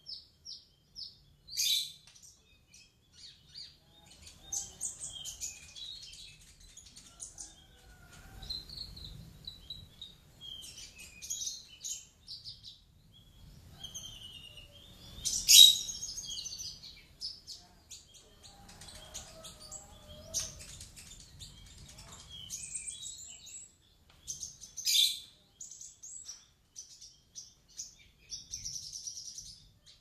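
Small caged songbirds chirping and twittering in rapid high-pitched phrases, with a few sharper, louder calls about 2, 15 and 25 seconds in.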